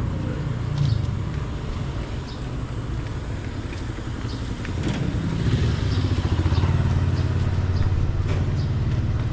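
A motor engine running steadily, growing louder about halfway through, with a few faint clicks over it.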